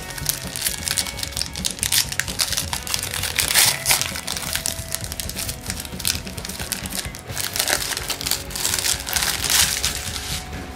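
A Bowman 48 basketball card pack wrapper being torn open and crinkled by hand: dense, irregular crackling and rustling, over quiet background music.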